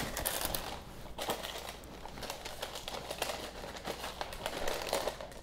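Parchment paper crinkling and rustling as a metal sheet pan is shifted on top of it, with many small irregular clicks.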